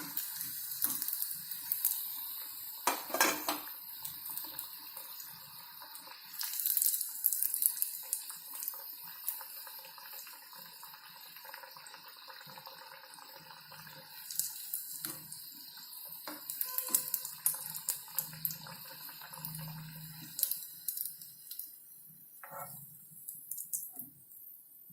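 Vermicelli-coated potato cutlets deep-frying in hot oil: a steady sizzle with crackling pops and occasional clinks of a utensil against the pan. The sizzle dies away near the end.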